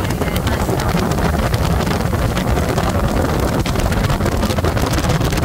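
Wind rumbling and buffeting on the microphone aboard a motorboat under way, over the steady run of its engine and water rushing past the hull.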